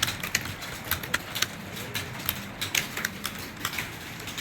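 Typing at speed: sharp key clicks in an irregular run, several a second.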